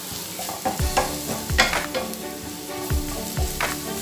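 Sliced onions, curry leaves and chilli and spice powders sizzling in oil in a nonstick frying pan while a spatula stirs them. About six sharp scrapes and knocks of the spatula against the pan stand out over a steady frying hiss.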